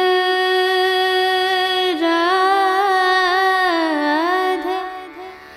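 Conch shell (shankha) blown by a temple priest: one long steady note, then after a brief break about two seconds in a second note that wavers up and down and fades near the end. It is the conch call that opens the altar curtains for darshan arati.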